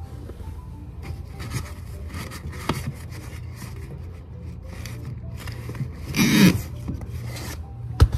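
Pen scratching on paper in short strokes as a list is written by hand, over a steady low hum. A louder brief burst about six seconds in and a sharp knock near the end.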